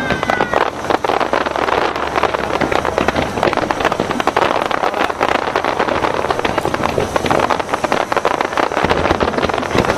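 Fireworks crackling in a dense, continuous stream of pops and cracks from many bursts at once, with a couple of falling whistles fading out in the first half second.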